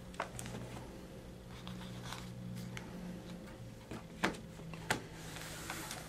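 Quiet room tone with a faint steady hum, broken by a few soft clicks and rustles as a picture book's page is turned.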